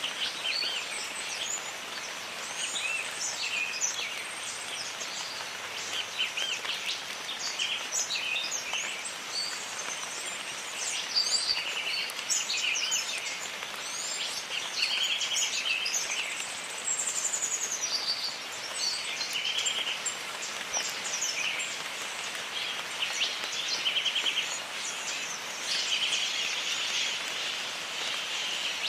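Jungle ambience: many birds chirping and calling over one another, some in quick pulsed trills, over a steady hiss of rain.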